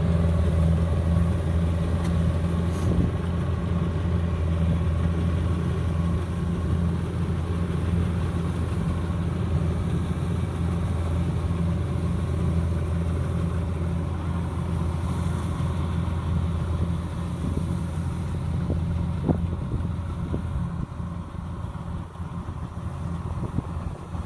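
Kubota DC-105X combine harvester's diesel engine running steadily with a low drone, getting somewhat quieter in the last few seconds.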